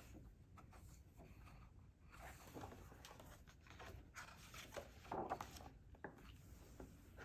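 Faint rustling and brushing of paper as the pages of a hardcover picture book are turned and smoothed flat by hand, with a few soft clicks; the loudest rustle comes a little past the middle.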